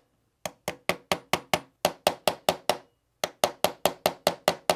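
Small hammer tapping a pin punch in quick, even light strikes, about five a second, driving a roll pin into a pistol's polymer frame. The taps come in two runs with a short pause between them.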